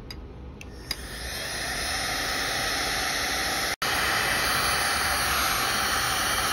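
Heat gun switched on with a click about a second in, its fan rising to a steady blowing hiss on its highest setting as it shrinks adhesive-lined heat-shrink tubing onto a crimped battery-cable terminal. The sound cuts out for an instant a little past the middle.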